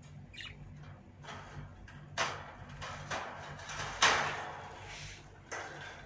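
Several short rustling, scraping noises, the loudest about four seconds in, around a wire budgie cage, with a brief budgie chirp near the start.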